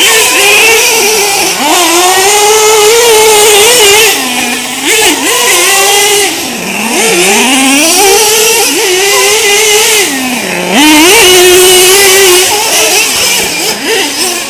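Small two-stroke nitro engines of 1/8-scale RC trucks racing at high revs. The pitch drops sharply and climbs back again every second or two as the throttle is lifted and reopened for corners and jumps.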